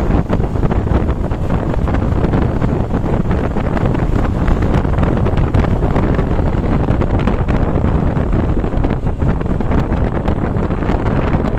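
Loud wind buffeting on the microphone: a steady rumbling noise with rapid flutter and no horn tune.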